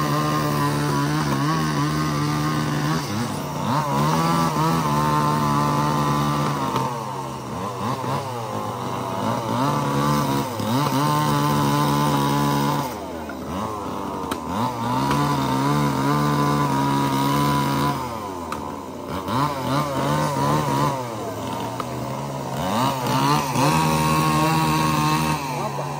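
Two-stroke chainsaw cutting logs at full throttle, dropping back and revving up again every few seconds.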